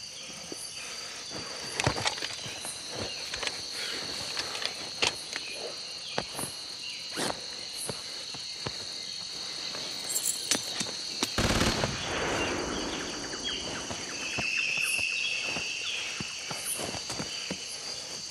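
Scuffling and rustling of bodies on dry leaves and twigs as a man grapples with a child on the forest floor, with many small cracks and clicks. A steady high chirring of insects runs underneath. A heavy thump comes a little past halfway.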